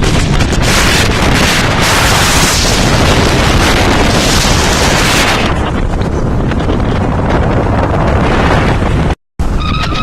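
Heavy wind buffeting the microphone during a Jeep ride, a loud, steady rumble with gusty surges. The sound cuts out for an instant about nine seconds in, then goes on.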